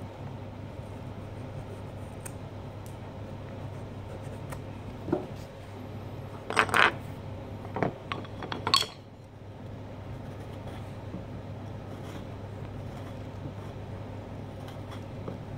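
A handful of sharp metallic clinks and knocks from carving knives, clustered around the middle, over a steady low hum.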